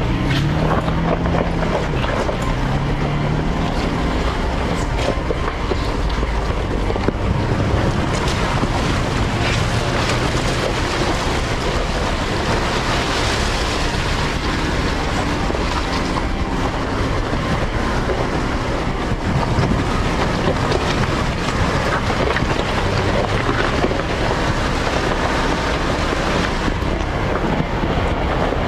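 Jeep Grand Cherokee Trailhawk driving a rocky off-road trail: engine running under a steady noise of tyres on rock with many small clicks and knocks, and wind on the microphone.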